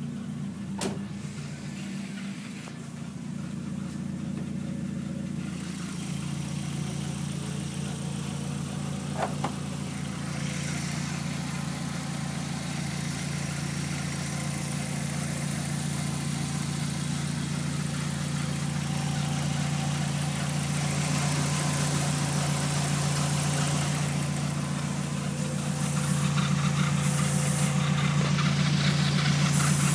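Volkswagen Gol GTi 16v's 16-valve four-cylinder engine running steadily with a belt noise that the owner says grows louder as the engine warms up. The sound gets gradually louder, stepping up near the end, with two short clicks early on and about nine seconds in.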